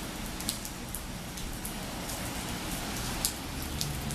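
Steady rain falling, with scattered sharp ticks of individual drops striking close by.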